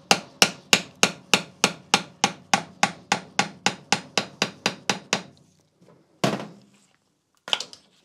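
Hammer tapping a screwdriver into a plug in the main bearing cap housing of a Mini Cooper S N14 engine, about three even blows a second, knocking the plug out. The tapping stops about five seconds in, followed by two separate clunks.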